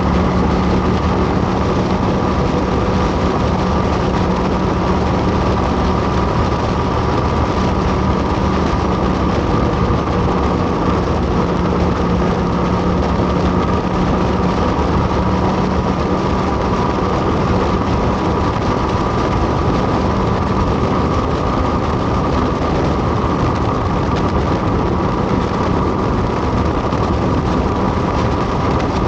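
Motorcycle engine running at a steady, unchanging note over a constant rushing noise, with no revving.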